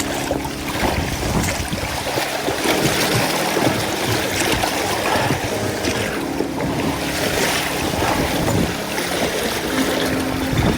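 Strong wind gusting across the microphone over water rushing and lapping around a drift boat on a river, rising and falling with the gusts.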